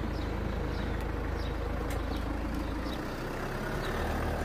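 Automatic half-barrier level crossing warning alarm sounding, a short falling tone repeating about every 0.7 seconds, over a low steady rumble.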